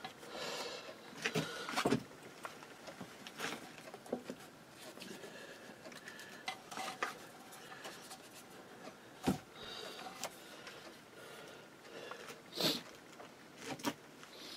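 Scattered light clicks, taps and rubbing as a metal plate is worked down onto the spacers inside a power inverter. There is a sharper knock about nine seconds in.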